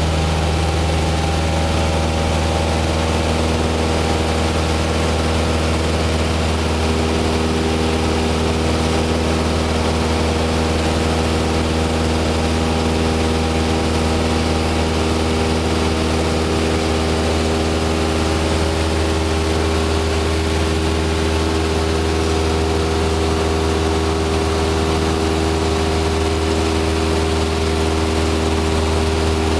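Piston engine and propeller of a high-wing single-engine light aircraft in flight, heard inside the cabin as a loud, steady, unbroken drone.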